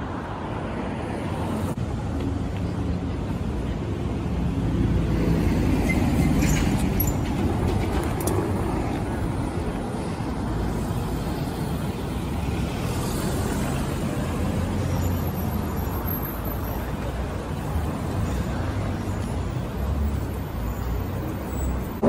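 City street traffic: cars moving slowly along the road, a steady low rumble that swells a little about five seconds in.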